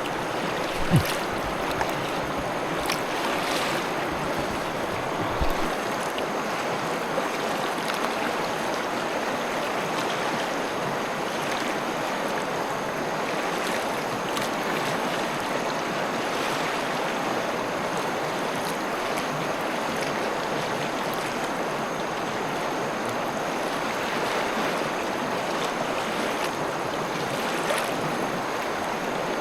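River water rushing steadily over stones, with a few light knocks in the first six seconds and one near the end.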